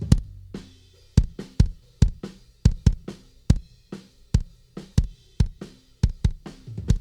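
Recorded drum kit playing a steady groove, bass drum and snare strikes about two to three a second, run through a dbx 160A compressor.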